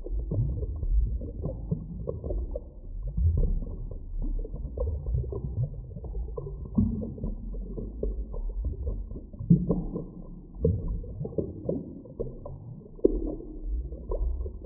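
Muffled underwater sound effect of a drowning: irregular bubbling and gurgling surges over a constant deep rumble, everything dull with no high end.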